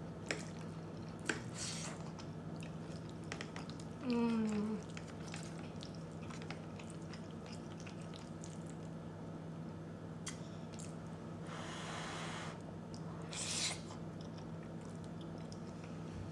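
Someone eating creamy shrimp linguine alfredo, with soft wet chewing and a few sharp clicks of a metal fork against the plate in the first couple of seconds. A short falling hum of the voice comes about four seconds in, and a hissy noise comes at twelve to thirteen seconds. A steady low hum runs underneath.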